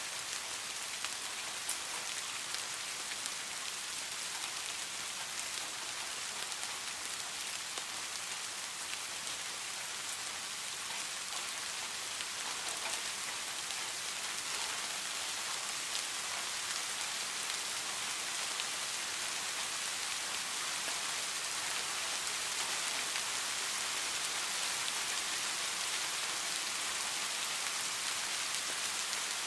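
Steady rain falling on pine boughs: an even hiss with scattered sharper drop clicks, growing slightly louder toward the end.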